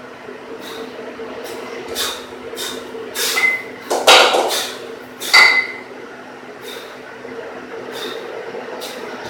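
A pair of 12 kg kettlebells clanking against each other, each knock with a short metallic ring, during a two-arm long cycle set. The loudest knocks come in a cluster between about three and six seconds in, where the bells drop from overhead into the rack and swing down, with lighter ticks scattered through the rest.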